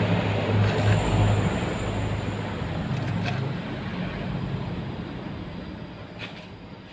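A motor vehicle passing on a nearby road, its engine hum and tyre rush loudest about a second in and then fading away as it recedes. A few faint clicks about 3 and 6 seconds in.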